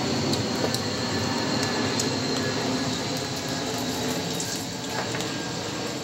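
Steady rain falling, with a few light clicks of chopsticks and bowls.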